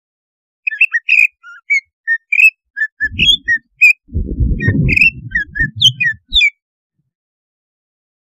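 Cucak ijo (green leafbird) calling in a quick run of short chirps and sharp whistled notes, the lure call used to rouse other cucak ijo into breeding excitement. A low rumbling noise sits under the calls in the middle, and the calls stop about six and a half seconds in.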